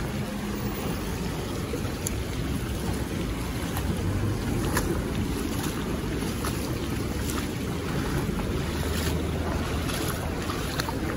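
Muddy floodwater rushing fast across the ground in a steady, noisy wash, with wind buffeting the microphone.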